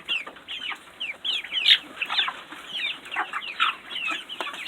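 A group of young chicks peeping: many short, high-pitched chirps that slide downward, overlapping one another continuously.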